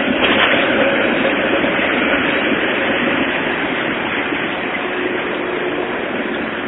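Tram rolling past on its rails, a steady rumbling noise that eases off slightly toward the end as it moves away.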